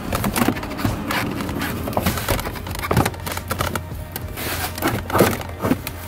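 Background music, with irregular knocks and rattles as the under-dash kick panel is wiggled loose and pulled down.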